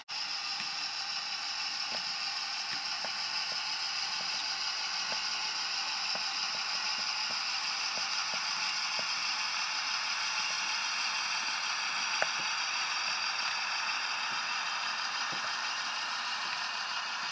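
H0-scale model train rolling past behind a model DB class 212 diesel locomotive: a steady mechanical whirr from the locomotive's motor and gearing, with the wheels clicking over rail joints roughly once a second and one sharper click about twelve seconds in.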